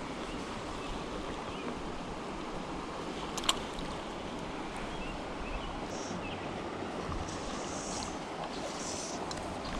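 Steady rush of a shallow river running over rocks and riffles, with one sharp click about three and a half seconds in.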